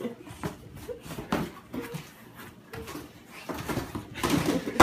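Cardboard boxes bumping and scraping and bare feet thudding on a tile floor as small children jump about wearing the boxes: scattered knocks and scuffs, busier and louder about four seconds in with a sharp bump at the end.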